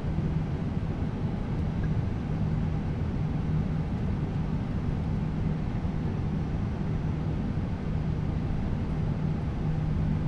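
Steady low hum inside a vehicle cabin, with a constant low drone and no rise or fall in loudness.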